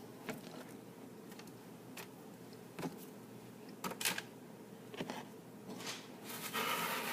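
Scattered light taps and clicks as potato slices are handled and laid onto an oiled pan, with a short rustling scrape near the end.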